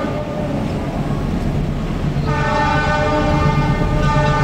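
Diesel locomotive's air horn sounding as the train approaches. A fading note at the start is followed by a louder long blast about two seconds in, which breaks briefly and starts again near the end. Under it runs the low rumble of the diesel engine, growing as the train draws closer.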